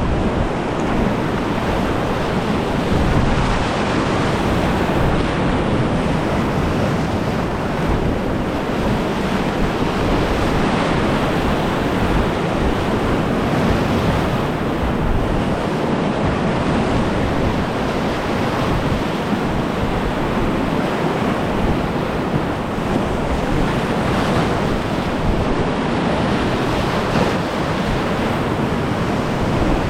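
Loud, continuous roar of big, fast whitewater rapids rushing around a kayak, with wind buffeting the microphone.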